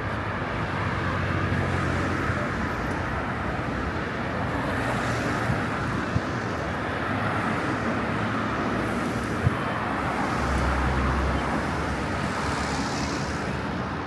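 Street ambience with car traffic going by: a steady hum of engines and tyres, with a brief low rumble about ten seconds in and a few faint clicks.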